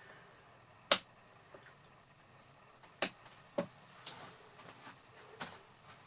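A few sharp, isolated clicks a second or two apart: the loudest about a second in, two more around three seconds in and one near the end, with fainter ticks between them against a quiet room.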